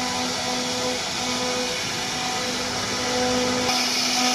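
CNC router spindle running and cutting into a board: a steady whirring hiss with a pitched hum that fades in and out. About three and a half seconds in it turns hissier and brighter.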